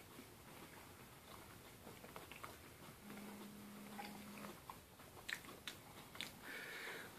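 Faint chewing and wet mouth clicks from people eating raw chilli pods, with a brief low steady hum about three seconds in and a few sharper clicks near the end.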